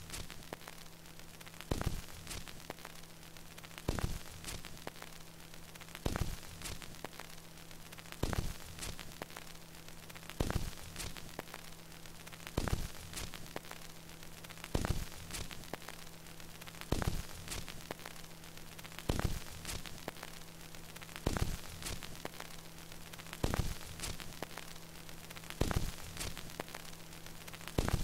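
Record player's stylus riding a vinyl record: steady surface hiss and a low hum, with a sharp click repeating evenly about every two seconds.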